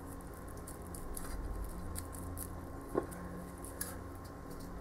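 Faint scratchy ticks and rustles of fingers working at the wrapped graft union on desert rose stems, with one sharper click about three seconds in, over a steady low hum.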